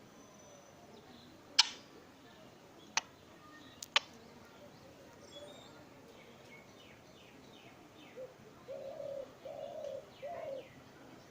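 Pet parrot calling: a few sharp clicks in the first four seconds and faint high chirps, then three short, low, cooing hoots in a row near the end.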